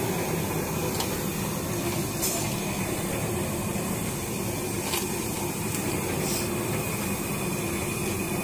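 Puffed-rice (muri) machine running: a steady hum and hiss from the motor-driven rotating drum, with a few faint clicks.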